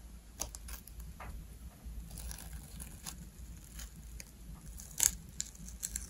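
Black adhesive tape being peeled by hand off the battery wiring inside a portable monitor: scattered small crackles and ticks, with a sharper click about five seconds in.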